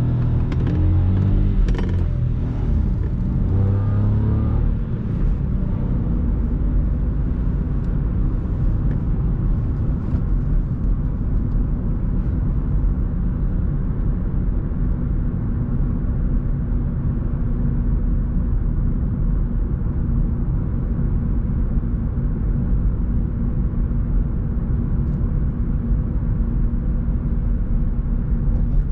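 2021 SEAT Ibiza's 1.0-litre three-cylinder MPI petrol engine pulling away under acceleration, its pitch rising and stepping in the first few seconds, then settling into a steady cruise at about 60 km/h with a low engine drone and tyre and road rumble, heard inside the cabin.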